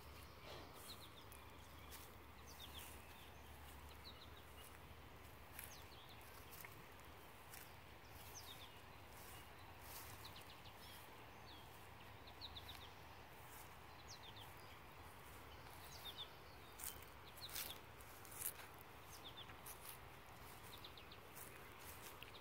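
Quiet outdoor ambience with faint birds chirping in short clusters of two or three high notes every second or two, over soft rustling steps through grass.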